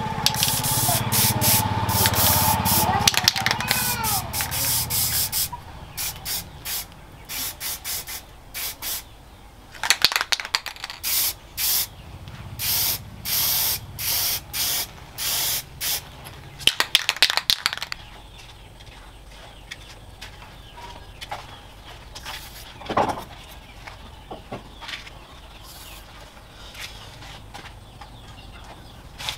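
Aerosol spray can spraying a coat onto a machete blade in many short spurts, one after another, stopping about two-thirds of the way through.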